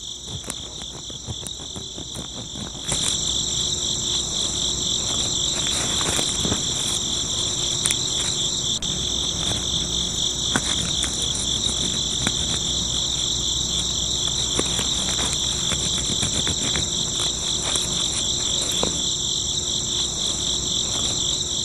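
Crickets chirping in a steady, high-pitched trill that grows louder about three seconds in, with a few faint clicks.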